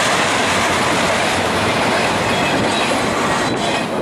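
Cars of a BNSF double-stack intermodal train rolling past, with a steady, loud rumble and clatter of steel wheels on the rails. The sound eases off about three and a half seconds in as the last well car goes by.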